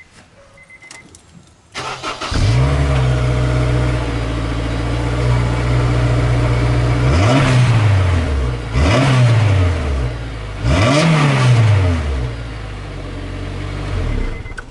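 Honda S2000's four-cylinder engine heard through its exhaust: it starts about two seconds in with a brief flare, settles to a steady fast idle, then is blipped three times, each rev rising and falling back, before returning to idle. The sound stops abruptly at the very end.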